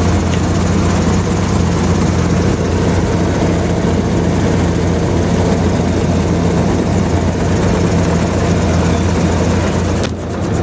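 Helicopter engine and rotor running steadily at ground idle, heard from the open cabin, with a brief knock near the end as the cabin door is handled.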